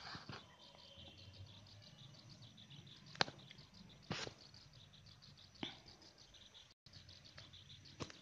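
Metal spatula stirring thick masala in a steel pan, knocking against the pan four times in a few seconds, faint overall. Under it runs a soft, rapid high chirping pulse.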